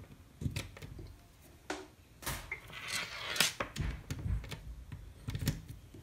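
Handling noises as a braided phone charging cable is unplugged from an iPhone and pulled away across a wooden desk: a few irregular clicks and knocks with short bits of rustling.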